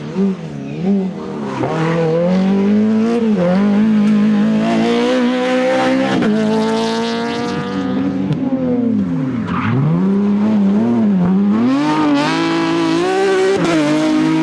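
Rally car engine revving hard under throttle. Its note wavers at first, then climbs steadily for several seconds, drops sharply a little past the middle as the driver lifts and brakes, and climbs again near the end.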